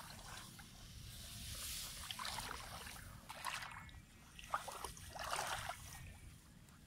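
A person wading through shallow water in a flooded rice paddy: irregular splashes and sloshing, with rice plants and a fishing net swishing as they are pushed through, over a low steady rumble.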